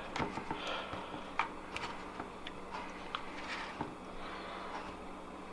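Soft rustling and scattered light clicks and taps of hands coating chunks of crappie in breading.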